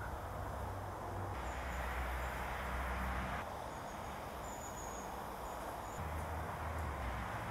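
Outdoor ambience: a steady hiss with a low rumble that comes and goes, and a few faint high chirps in the middle. The background changes abruptly several times, like separate recordings spliced together.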